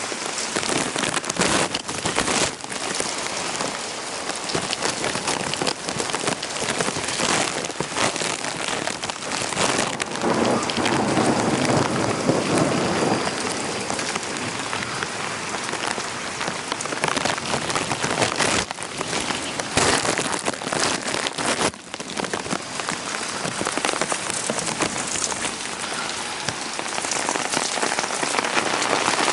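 Heavy rain falling steadily during a thunderstorm, with a low rumble of thunder swelling and fading over a few seconds near the middle.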